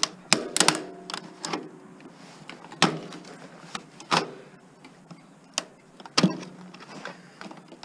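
Metal tools and parts being handled and rummaged through: an irregular series of clinks and knocks, a second or so apart, loudest near the start and again past the middle.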